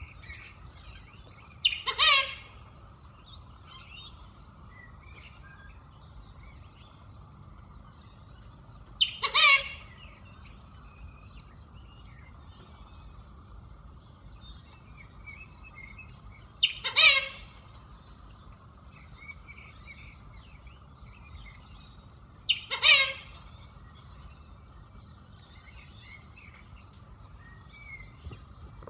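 A black bird giving a loud, brief call four times, about every seven seconds, with faint chirping of other birds between the calls.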